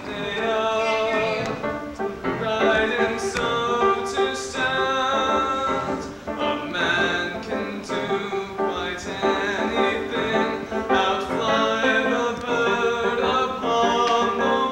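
A song: singing voices, including a man's, over instrumental backing.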